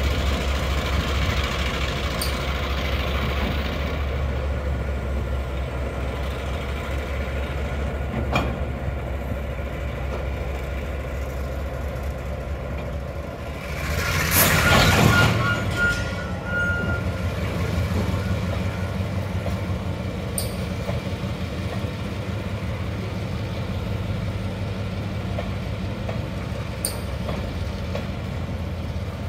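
Diesel locomotive engine running with a steady low rumble as it pulls a freight train away, loudest in the first half. About halfway through comes a loud rush of noise lasting a second or two, after which the freight wagons roll past with a steady rumble and a few sharp clanks.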